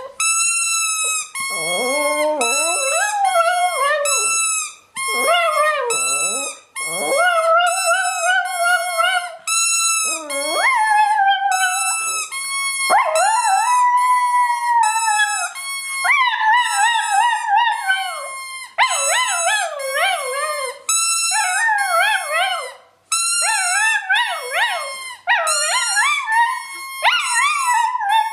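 Pet dog howling along to music, its voice sliding up and down in long wavering calls over a steady run of high-pitched notes.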